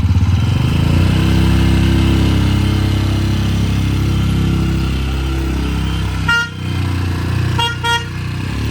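A motor vehicle's engine runs and changes pitch as it moves off. Its horn gives one short beep about six seconds in, then two quick beeps near the end.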